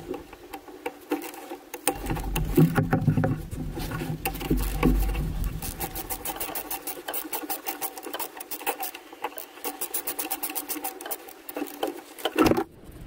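Ratchet wrench clicking in quick runs as it works a bolt holding the EGR valve of a 2.0 CDTI diesel, with knocks and rubbing of the tool and gloved hand against engine parts. There is a louder knock near the end.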